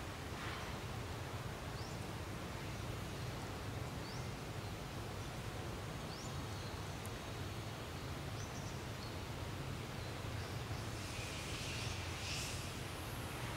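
Steady outdoor forest ambience: a constant low rumble with a few faint, short, high chirps now and then, and a brief breathy hiss about three-quarters of the way through.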